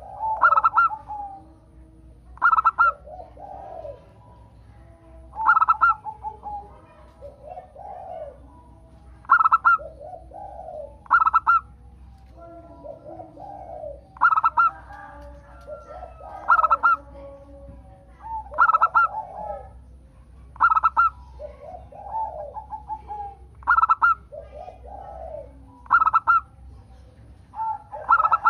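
Zebra doves (perkutut) singing: repeated cooing phrases about every two seconds, each a quick stuttering high note followed by a lower rolling coo, some phrases overlapping.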